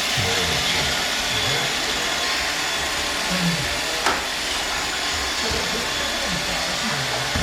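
Roomba robot vacuum running steadily as it cleans, with one sharp click about four seconds in.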